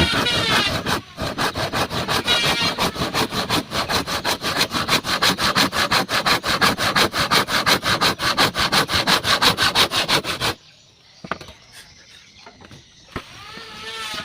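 Hand saw cutting through wood in rapid, even back-and-forth strokes, stopping abruptly about ten seconds in.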